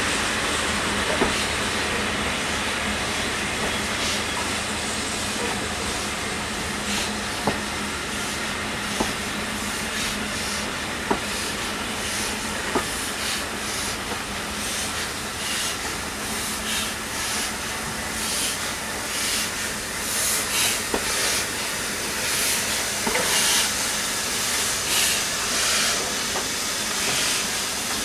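A train of passenger coaches rolls slowly past, its wheels clicking over rail joints every second or two. About halfway through, a rhythmic steam hiss from the Great Northern Railway class N2 tank locomotive No.1744 grows louder as the engine draws alongside.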